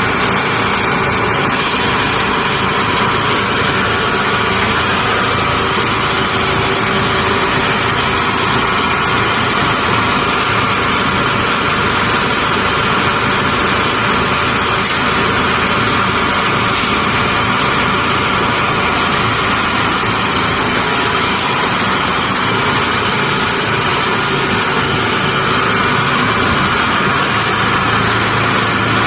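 Hydraulic scrap metal baler running: a steady, unbroken machine drone from its hydraulic power unit, with no distinct crunches or impacts.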